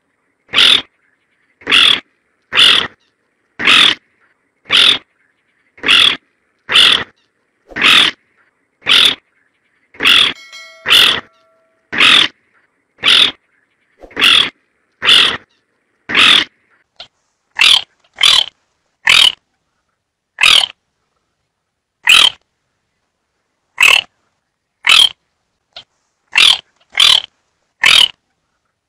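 Baillon's crake calling: a short call repeated about once a second, spacing out a little and growing less regular in the second half.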